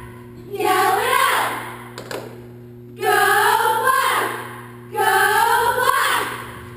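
Cheerleading squad chanting a cheer in unison: three shouted phrases of about a second and a half each, with short pauses between.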